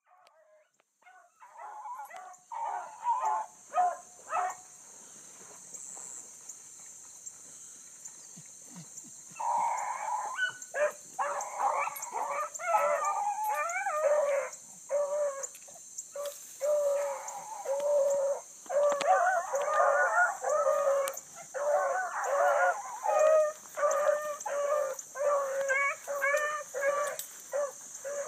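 Pack of bluetick coonhounds baying while running a rabbit, the sign that they are on the track. A few calls come about two seconds in, a pause follows, then steady overlapping baying from about ten seconds on. A steady high hiss runs underneath.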